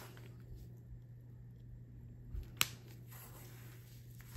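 Quiet room with a steady low hum and a single sharp, light click a little past halfway through, from the handling of small glass pieces and tools at the work surface.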